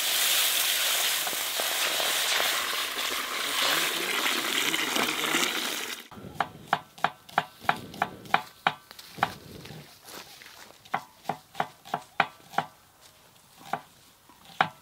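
Water poured into a hot, dry cast-iron kadai, hissing loudly as it flashes to steam; it cuts off abruptly about six seconds in. Then a knife chopping on a board, sharp chops about two a second.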